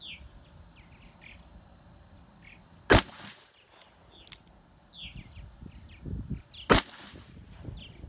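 Two shots from a Smith & Wesson Model 29 revolver firing .44 Magnum, about four seconds apart, each a sharp crack with a short echo. Birds chirp in between.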